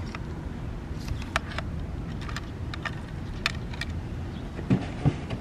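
Scattered light clicks and taps from handling the plastic parts of an RC bait boat and its controller, over a steady low hum, with two dull knocks near the end.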